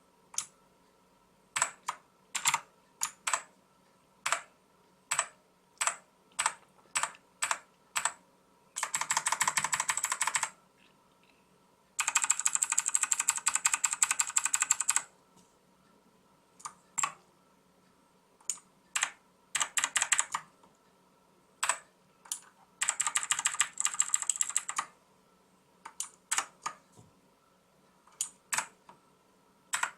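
Xenics STORMX TITAN MARK VII mechanical keyboard with clicky blue switches being typed on: single sharp keystrokes about one or two a second, broken four times by runs of rapid typing lasting one to three seconds.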